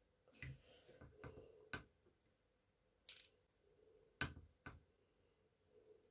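Near silence broken by a few faint, short clicks and taps, the clearest a little past four seconds in: a plastic toothpaste tube being handled and squeezed to dot paste onto baking paper.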